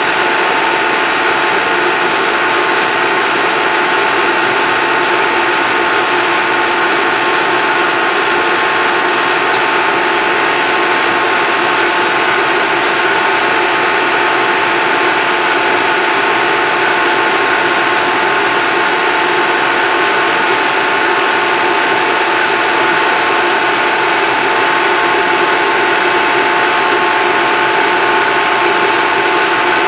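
Tractor engine and drivetrain running at a steady road speed, heard from inside the cab, with an even mechanical whine over the engine noise.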